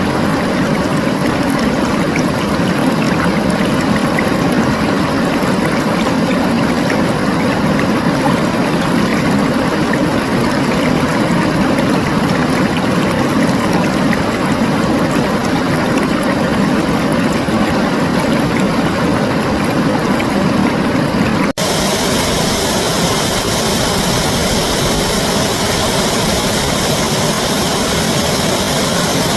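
A recording of rushing water played backwards: a loud, steady roar. About twenty seconds in it cuts abruptly to a brighter, hissier stretch of the same kind of sound.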